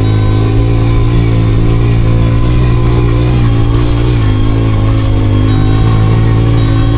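Motorcycle engine running at a steady speed, a loud, even hum with little change in pitch.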